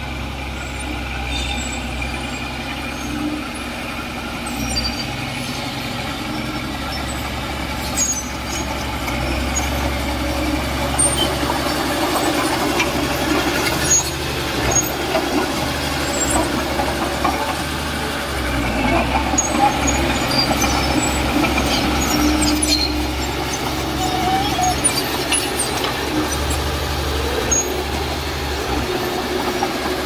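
Heavy diesel earthmoving machinery running steadily under load, a deep engine rumble with scattered metallic clanks.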